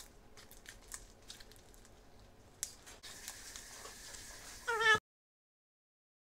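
Butter slime being kneaded by hand, giving faint sticky clicks and squelches, then a short, loud, high-pitched cry near five seconds in, after which the sound cuts out completely.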